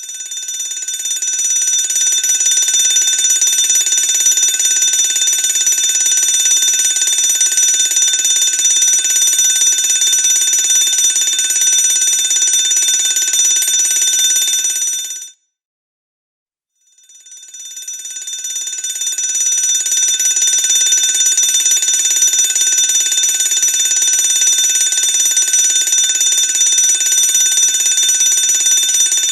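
Electric fire alarm bell ringing continuously. It swells up over the first couple of seconds, cuts off abruptly about halfway through, then after a second and a half of silence starts again and builds back to a full, steady ring.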